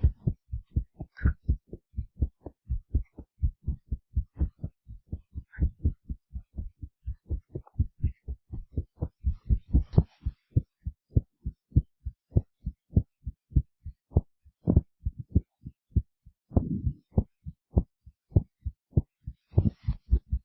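Heartbeat sound effect: a steady run of fast, low thumps, about three a second.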